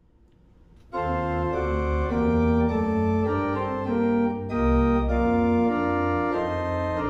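Organ playing a hymn introduction, starting about a second in: sustained chords over a deep held bass, changing every half second or so.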